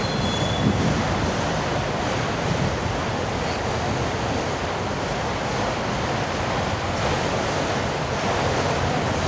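Autorack freight cars rolling past: a steady roar of wheels on rail, mixed with wind buffeting the microphone.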